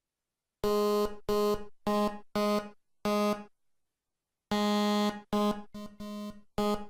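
Buzzy synthesizer notes from an LMMS software instrument, all at one low pitch. Five short notes come about half a second apart, then after a pause of about a second a quicker, uneven run of notes follows.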